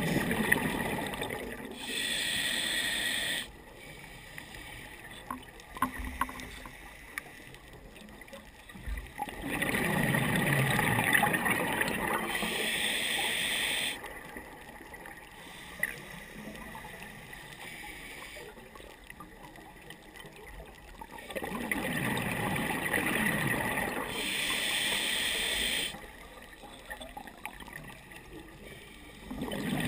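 Scuba diver breathing through a regulator underwater. There are three slow breaths about ten seconds apart, each a low rush of exhaled bubbles followed by a high hiss of air through the regulator. A fourth breath starts near the end.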